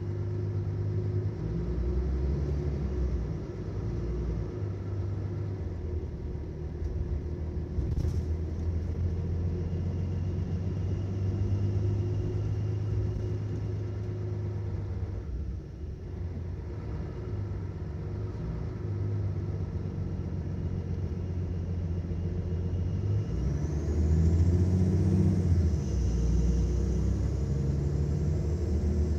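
Mercedes-Benz Citaro O530 city bus's diesel engine running, heard from inside the bus as a steady low drone whose pitch shifts in steps several times. It is loudest about 24 seconds in, with a faint rising whine.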